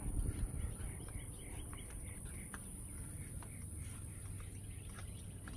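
Small birds chirping in short, repeated calls over a low background rumble, with a steady thin high-pitched whine throughout.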